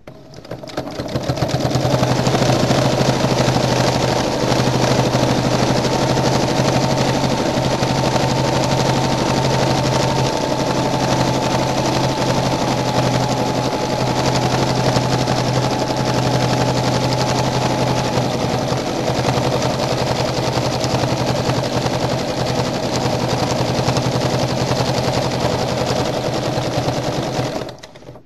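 Domestic sewing machine stitching fast and without a break for free-motion quilting: a steady rapid needle rattle over the motor's hum. It speeds up over the first two seconds and stops just before the end.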